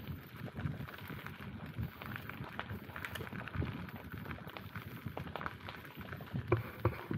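Bicycle rolling over an unpaved track: a steady crunching crackle from the tyres with small knocks and rattles from the bike, and a few sharper clicks near the end.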